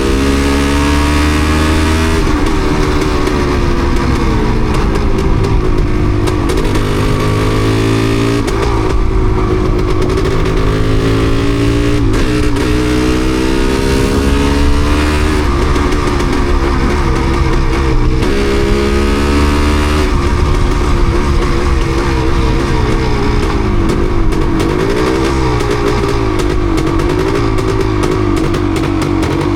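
Yamaha DT250MX single-cylinder two-stroke motorcycle engine running under way, its pitch repeatedly climbing and then dropping back as it goes up through the gears. It is running with a misfire that the rider puts down to water on the spark plug.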